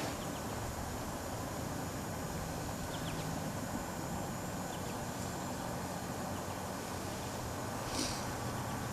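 Quiet woodland ambience heard from a tree stand: a steady hiss of background noise with a few faint high chirps, and one short breathy burst about eight seconds in.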